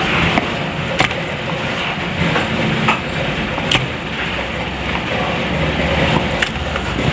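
Steady background noise, like road traffic, with scattered sharp clicks and knocks. A low rumble swells about halfway through.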